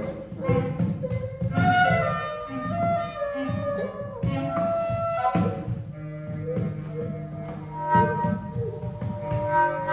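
Free-improvised ensemble music: several reed instruments, saxophone and clarinet among them, play overlapping, clashing lines over bata drums. A low note is held from about six to eight seconds in.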